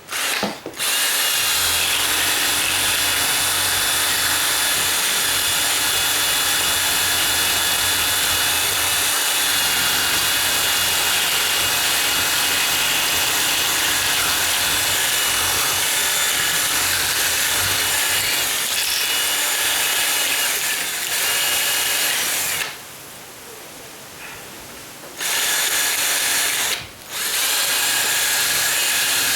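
Electric drill running at high speed, its bit's edge grinding against the metal edge of a deadbolt strike plate to ream it wider where the latch rubs. It runs steadily, stops for a couple of seconds near the end, then starts again with a brief pause.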